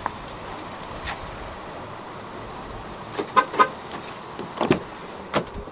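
Two quick car-horn chirps in close succession, as when an SUV is unlocked by remote, about three and a half seconds in. A couple of sharp clicks follow at the door handle and door.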